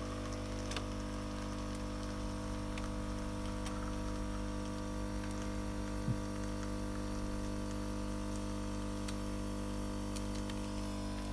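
Nivona coffee machine brewing: its water pump runs with a steady hum as water is forced through the brew unit. There is little creak from the brew unit, whose plastic top is braced with a spoon so it cannot flex, and one short click about six seconds in.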